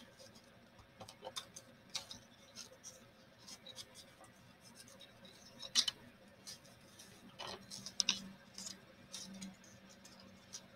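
Paper strips crinkling and rustling as hands fold and weave them into a four-strand braid: scattered soft ticks and crackles, a little louder about six and eight seconds in.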